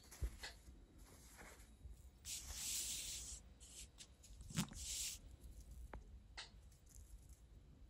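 Cloth pages of a fabric book sewn from shirts being handled and turned by hand: soft rustling and brushing of cotton, in two spells, with a few light knocks against the cardboard backing.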